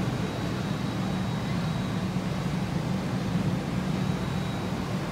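Steady hum and air rush of an Airbus A320's cabin ventilation while parked at the gate, with a faint high whine above it.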